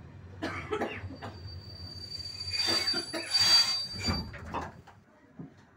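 Passenger train's wheels squealing on the rails: a steady high whine over rumbling and clattering. The squeal is loudest about halfway through with a grinding hiss, and the rumble dies down near the end.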